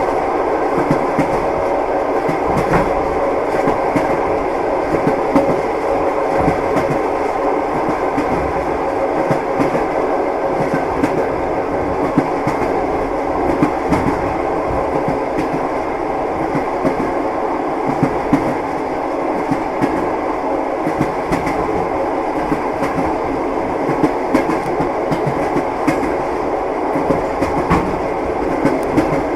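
Long-distance passenger train heard from inside a compartment carriage: a steady rumble with the wheels knocking over rail joints again and again.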